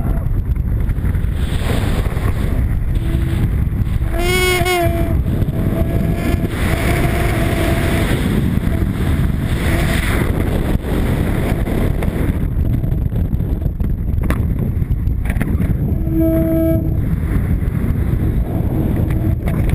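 Wind rushing over a helmet-camera microphone in skydiving freefall, a loud steady buffeting. A few brief pitched sounds cut through it, one about four seconds in and another near the end.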